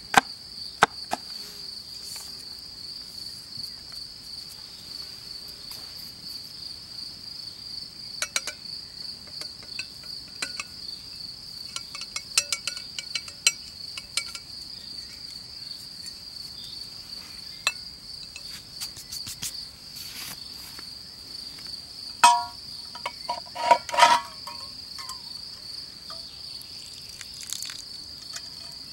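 Crickets chirring steadily in a high, even trill. A cleaver chops a few times on a wooden board near the start, and a handful of louder clinks and knocks come about twenty-two to twenty-four seconds in.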